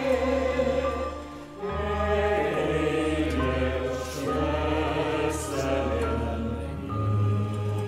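Combined choir singing a Christmas carol in sustained chords with instrumental ensemble accompaniment and a steady low bass. The music dips briefly about a second and a half in, then the choir comes back in.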